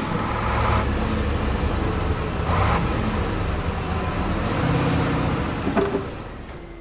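A vehicle engine running steadily, a low rumble with a couple of short clicks, easing off near the end.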